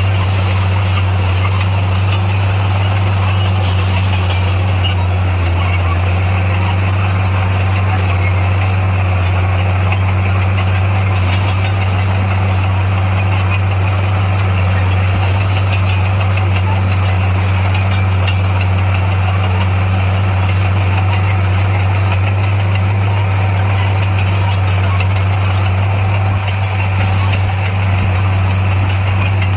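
Heavy earthmoving machine's diesel engine running steadily with a strong, even low hum.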